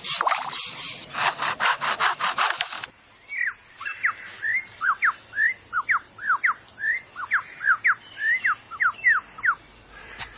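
Male superb lyrebird mimicking foresters' chainsaws: a rasping, pulsing buzz for about three seconds, then a run of quick clear whistles sweeping up and down.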